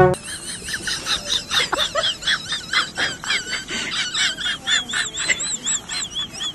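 Rapid, high-pitched twittering and chirping of small birds: many short warbling calls repeating several times a second.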